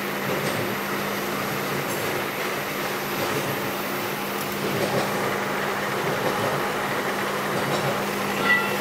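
Steady machine-shop noise: machinery running with a constant low hum under an even noise, with no distinct strikes.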